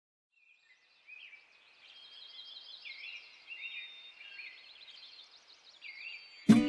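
Songbirds chirping and trilling in short repeated phrases. Near the end, music starts abruptly with a loud chord.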